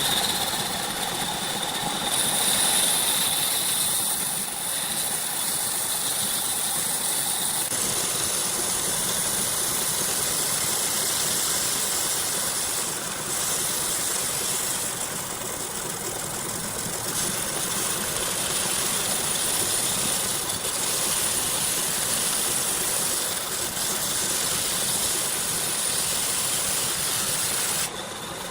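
A woodworking power tool running steadily with a constant high whine.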